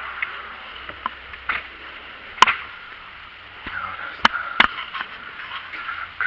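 A few sharp knocks and rattles over a steady hiss: one about two and a half seconds in, and two close together just past four seconds, as things are handled and moved about.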